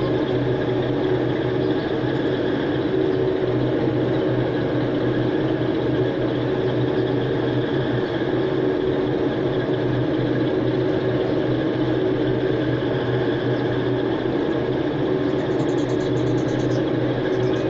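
A steady machine drone with a low hum, holding one pitch and level throughout.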